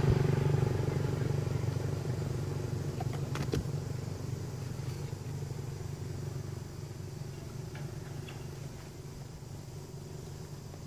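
A passing motor vehicle's engine, a steady low hum that fades away as it drives off, with a few faint clicks about three and a half seconds in.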